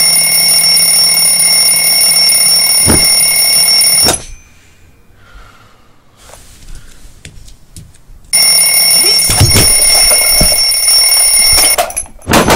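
Alarm clock ringing loudly and steadily. It stops about four seconds in, starts again about four seconds later, and cuts off near the end, followed by a few knocks.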